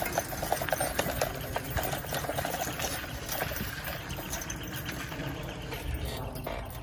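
Bicycle rolling fast over rough sand and grass: rapid mechanical ticking and rattling from the bike over a low rumble of tyre and wind noise, easing off slightly near the end.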